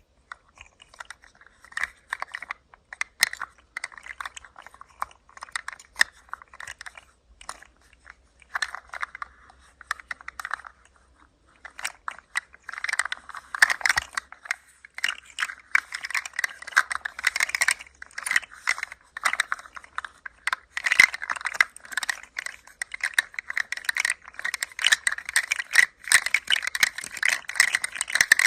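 Hand-held rattle toy being moved about, a dense patter of small clicks and rattles. It pauses briefly twice, then grows busier and louder from about halfway.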